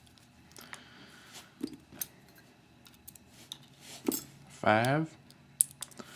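Light metallic clicks and clinks, several spread apart, as small brass pins and springs are worked out of a disassembled pin-tumbler lock cylinder one by one. A single counted number is spoken near the end.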